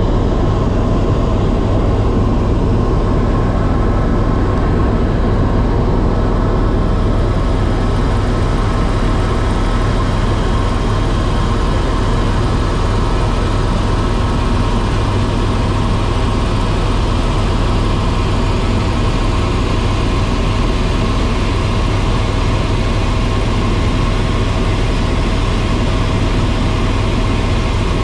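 Steady drone of a tour helicopter's turbine engine and rotor, an unbroken low throb with a faint steady whine above it.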